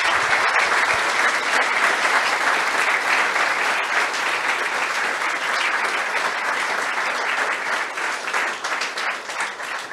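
Audience applauding, thinning out near the end.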